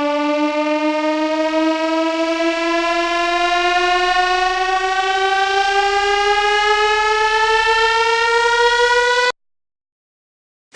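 Civil defense siren sound effect: a single loud tone rising slowly and steadily in pitch, cutting off abruptly about nine seconds in.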